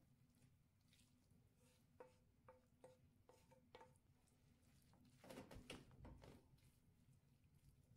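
Faint kitchen handling: a wooden spoon knocks lightly about six times against a frying pan, each knock ringing briefly, as chicken filling is scraped out, then a short louder spell of scraping and rustling as the filling is spread over puff pastry on baking paper.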